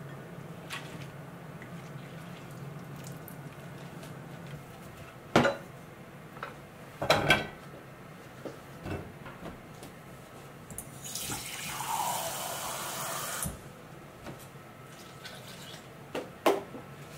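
A few sharp knocks of kitchen utensils on a wooden cutting board and pot, the loudest about five and seven seconds in, then water running from a kitchen tap for about two and a half seconds.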